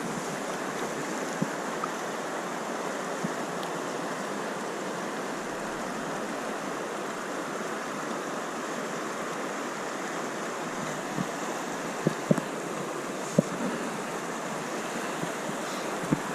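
Steady rush of flowing stream water, with a few short sharp clicks near the end.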